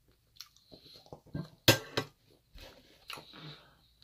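A metal fork clinks and scrapes against a stainless steel pan in a few sharp knocks, the loudest about a second and a half in, with chewing between them.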